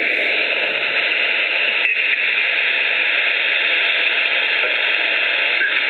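HF amateur radio receiver (FlexRadio 6600M) giving a steady hiss of band noise and static with no signal on the frequency. The hiss dips briefly about two seconds in.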